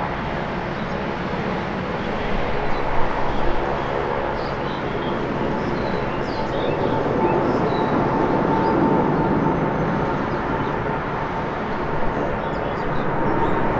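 Boeing 787 jet engines at takeoff power on the takeoff roll: a steady roar, with a thin steady whine coming in about halfway through.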